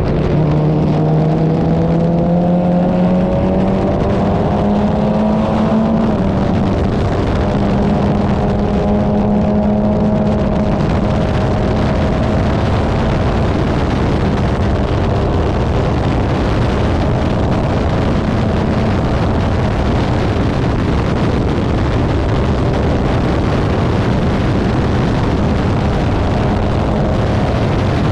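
Formula 4 race car's engine at high revs under racing load, its pitch climbing over the first few seconds and then holding fairly steady, over a loud rush of wind and road noise.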